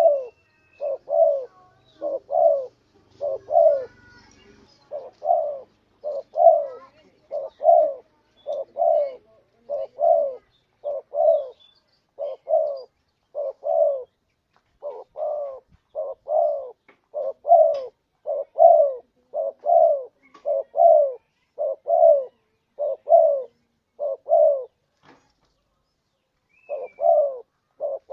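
Spotted dove (tekukur) cooing over and over, short low notes in quick groups of two or three, with a brief pause near the end.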